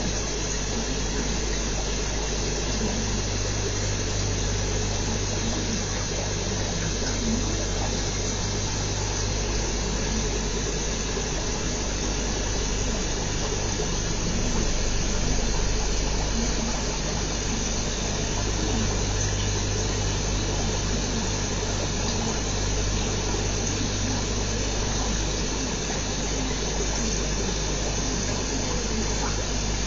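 Aquarium pump and filtration running steadily: an even hiss of moving water over a low hum.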